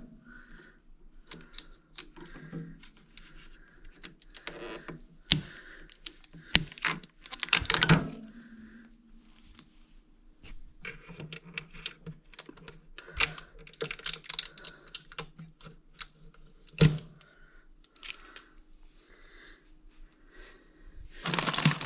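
Handling noise from unpacking a portable fridge-freezer: irregular clicks, knocks and rustling, with louder knocks about eight seconds in and again near seventeen seconds.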